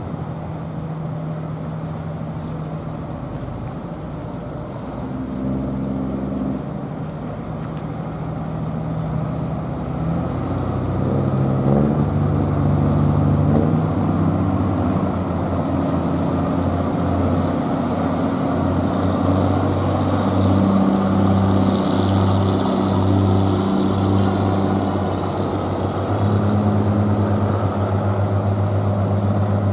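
Small passenger ferry Kuki-maru's diesel engine running as the boat pulls away, its note stepping up and getting louder about a third of the way in, then holding as an uneven, pulsing hum.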